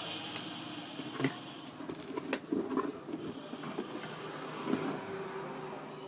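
Scattered light knocks, clicks and scraping as a home theater amplifier circuit board with its mains transformer is handled and pulled out of a wooden speaker cabinet.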